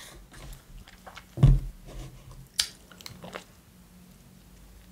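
A drinking straw pushed into a small carton of apple juice, with one sharp thump about a second and a half in, then faint sipping through the straw, close to the microphone.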